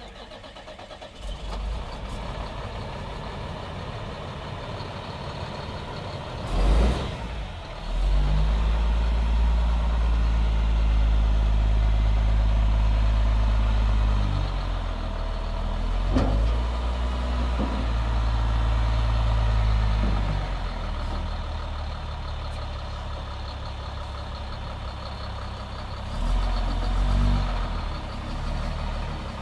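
Sterling LT8500 plow truck's diesel engine running. About seven seconds in there is a brief loud burst, then the engine revs up and holds higher for several seconds with a couple of knocks before settling back, as the hydraulics work the front plow and wing.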